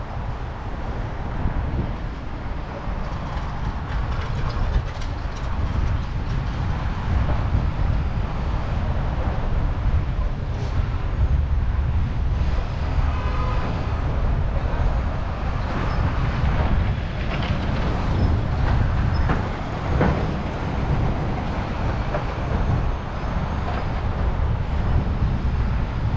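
Wind rushing over the microphone of a helmet-mounted camera on a moving bicycle, a steady low rumble, with faint clicks from the bike chain and street noise underneath.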